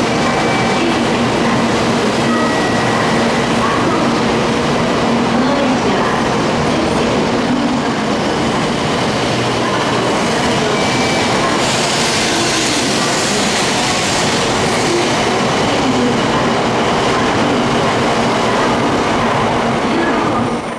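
Shinkansen bullet train alongside the platform, a loud, steady rail and running noise as the train pulls out near the end. The sound cuts off suddenly at the end.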